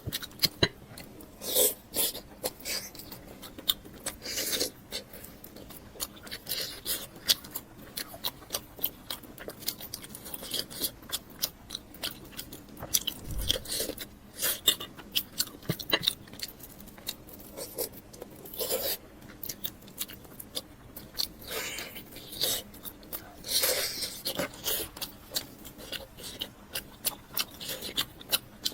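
Close-miked eating: a person biting and chewing food, with an irregular run of short, sharp crunching and mouth clicks.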